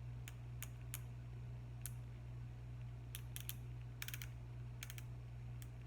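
Irregular light clicks and taps as a super glue bottle is handled and squeezed while no glue comes out, some in quick little clusters, over a steady low hum.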